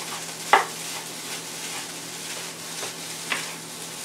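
Rice and beans sizzling in a hot metal skillet while being stirred with a wooden spoon, with a steady frying hiss. The spoon knocks sharply against the pan about half a second in and again, more softly, near the end.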